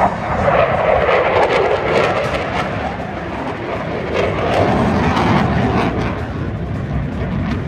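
Fixed-wing aircraft flying past with loud, rushing engine noise that drops in pitch as it goes by, then swells again before easing off.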